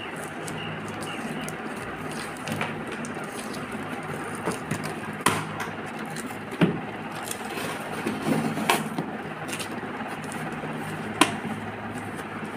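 Hands opening a cardboard shipping box, peeling packing tape and a plastic sleeve off it: scattered crackles, rustles and taps, the sharpest a few seconds apart, over a steady low hum.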